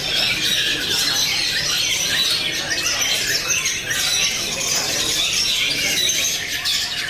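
Caged long-tailed shrikes (cendet) and other contest songbirds chattering and squawking at once in a dense, unbroken chorus. The lead is a young shrike's fast, continuous 'sewing-machine' chatter.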